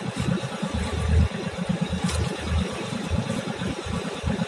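A small fishing boat's engine running with a low, uneven rumble, under a steady hiss of wind and water.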